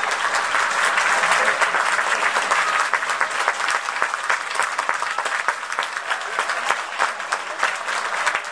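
Crowd of football supporters clapping, with a mass of voices mixed in during the first few seconds; the applause thins into more separate, individual claps toward the end.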